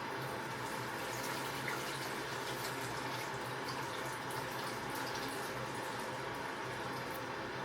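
Kitchen tap running steadily into a bowl of soaking berries, with faint small splashes and drips.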